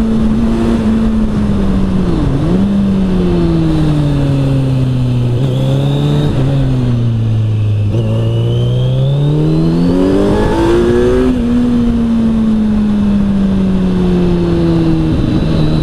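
Kawasaki Z900's inline-four engine through an Arrow exhaust, heard from the bike while riding. The engine note sags briefly about two seconds in, falls steadily for several seconds as the bike slows, then climbs steeply under hard acceleration. It drops sharply at an upshift about eleven seconds in and holds fairly steady, easing slightly lower, near the end.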